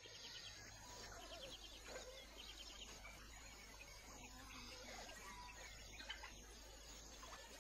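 Faint wild ambience of distant bird calls and insects, with a rapid pulsing trill in the first couple of seconds.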